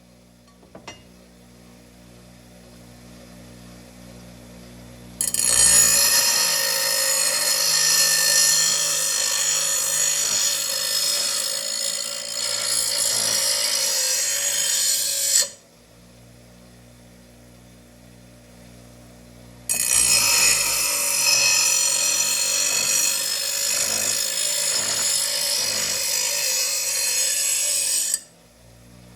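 Power grinder grinding the edge of a lawn mower blade in two long passes of about ten and eight seconds, each starting and stopping abruptly. Between the passes there is a steady low hum.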